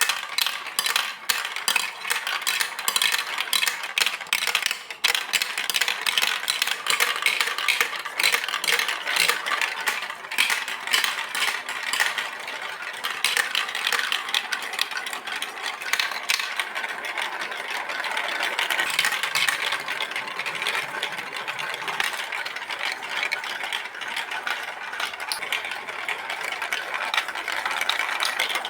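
Many marbles rolling and clattering down a plastic Lego Duplo block track. Through the first half there are dense clicks and knocks, and after that a steadier rolling rattle.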